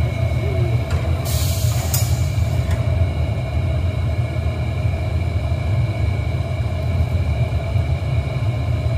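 Glass furnace burners and blowers in a glassworks running with a steady low rumble and a few steady whining tones above it. A short hiss cuts in briefly about a second and a half in.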